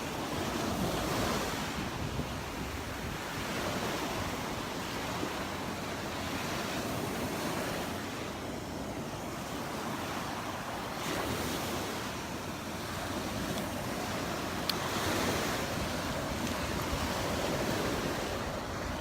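Surf breaking on the beach, a steady rush of water that swells and eases every few seconds, with wind rushing over the microphone. A single sharp click about three quarters of the way through.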